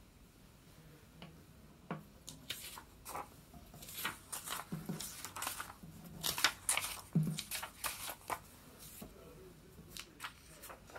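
Paper index cards being picked up, slid across a wooden tabletop and stacked: a run of irregular rustles and light taps from about two seconds in until near the end.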